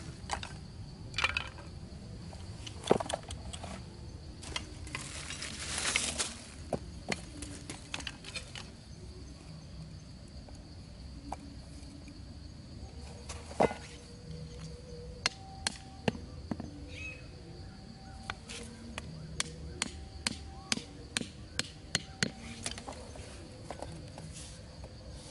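Scattered sharp clicks and knocks of wooden sticks being handled on dry ground, with a longer rustle about six seconds in, over a steady high insect drone.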